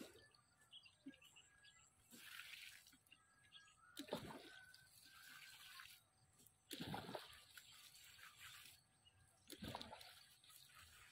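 Water being poured over vegetable plants in four separate faint splashing pours, about two to three seconds apart.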